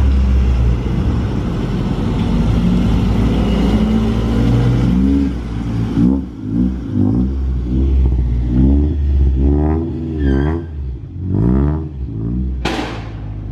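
Honda Civic hatchback engine running steadily as the car pulls up, then revved in a string of quick throttle blips, each a short rising and falling note. A brief hissing burst comes near the end.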